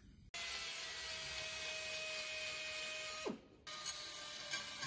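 Small handheld die grinder with a long bit grinding out the intake port of a Mazda 13B rotary engine's cast-iron side housing, removing the casting lip to smooth the airflow. It starts with a steady whine and hiss, winds down in pitch and stops about three seconds in, then starts again.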